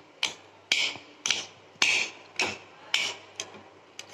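A metal spoon striking and scraping against a bowl in short, sharp knocks about twice a second, breaking up boiled tomatoes and soaked red chillies.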